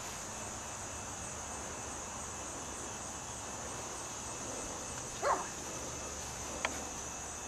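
Steady high-pitched insect chorus. About five seconds in, one short animal call with a wavering pitch cuts through, followed by a faint click.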